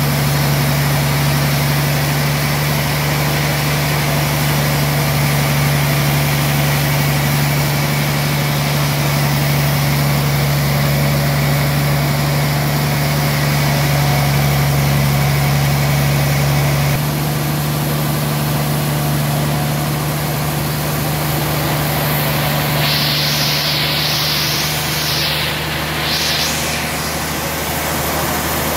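Band sawmill running with a steady low hum, the sound shifting abruptly about two-thirds of the way through and a few short higher-pitched sweeps following a little later.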